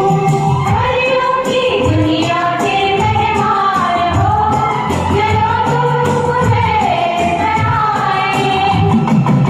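A Hindi film song sung to a karaoke backing track, a sung melody with held, gliding notes over the instrumental accompaniment.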